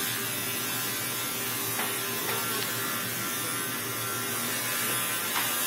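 A steady electric buzzing hum that runs without change, with a faint click or two.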